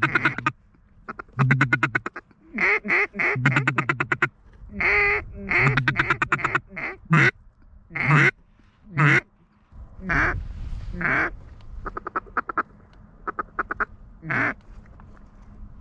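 Duck call blown by a hunter: a run of quacks and fast raspy chuckles with short breaks between them, working circling pintails toward the decoys.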